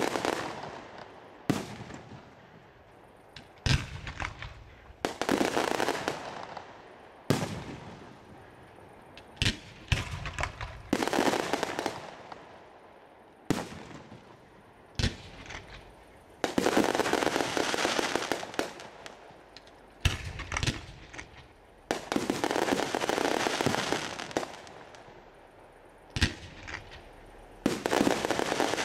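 Fireworks display: aerial shells burst with a sharp bang every one to four seconds. Most bangs are followed by one to three seconds of crackling from the falling stars.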